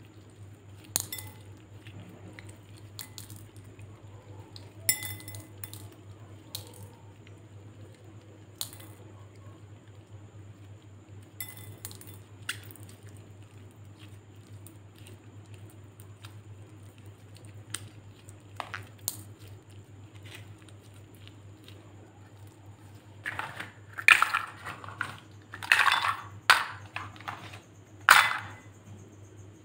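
Glossy slime squeezed by hand over gel beads in a glass bowl, with scattered small clicks and pops. Near the end, small plastic cups clatter against the glass bowl in several louder bursts. A steady low hum runs underneath.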